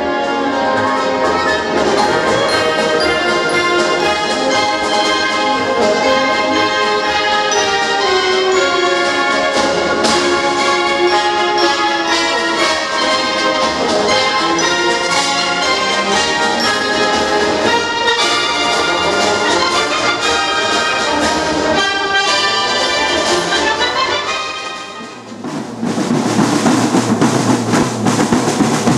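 Brass band with trumpets and tubas playing a continuous tune. About 25 seconds in, after a brief dip, it changes to a snare drum corps drumming.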